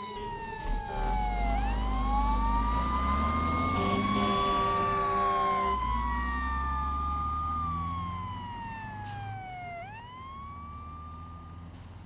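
Fire engine siren wailing in long rising and falling sweeps over the low rumble of the truck's engine, fading toward the end as the truck drives off.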